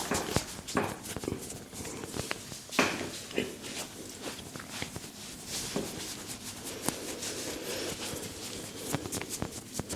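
Head massage by hand: skin and hair rubbing under the hands, with irregular sharp taps and slaps, the loudest about three seconds in.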